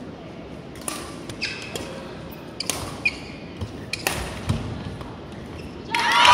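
Badminton rally: sharp racket strikes on the shuttlecock, spaced a second or so apart, with court shoes squeaking on the floor. Near the end spectators break into cheering.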